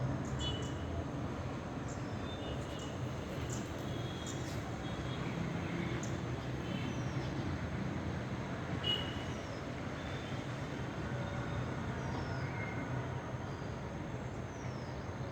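Steady low traffic rumble, with small birds giving short high chirps and a few quick falling whistles scattered throughout.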